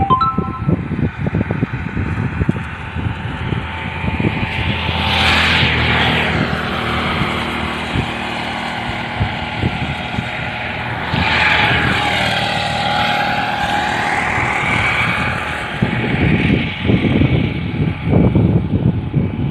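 A motor engine running steadily for most of the stretch, with two sweeping swells of noise as if something passes close, and wind buffeting the microphone near the start and end.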